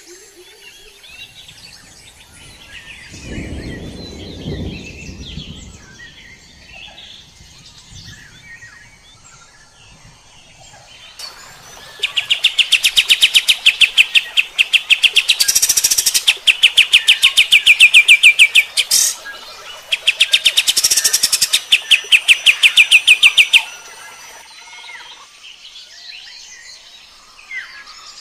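Kapas tembak bulbul singing: soft scattered chirps, then a loud, fast rattling run of sharp repeated notes lasting about ten seconds. The run is broken once by a short gap and stops abruptly.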